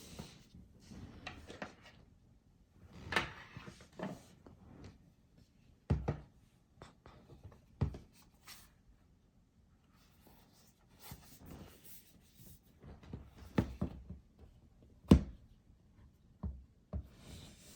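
Handling noise from a MacBook and its packaging being unboxed: scattered sharp taps and knocks with light rubbing between them, the loudest knock about 15 seconds in.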